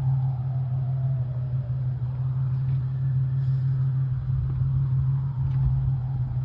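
Wind buffeting a phone's microphone: a fluttering low rumble that grows stronger after a few seconds, over a steady low hum.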